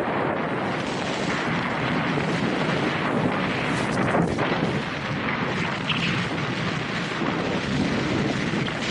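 Steady rush of wind buffeting an Insta360 X3 action camera's microphone during a fast powder-ski descent, with the hiss of skis through snow underneath.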